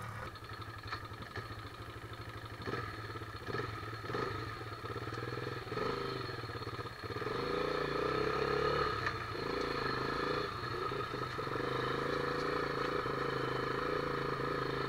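Small off-road vehicle engine running steadily while riding over rough ground, with scattered knocks and rattles.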